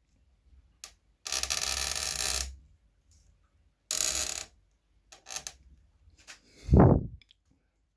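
Small thread-cutting tap being turned by hand in a metal screw hole. There are scattered clicks, two bursts of harsh noise, and near the end a short loud squeal that drops steeply in pitch. It is the worrying noise of a tap binding as it cuts.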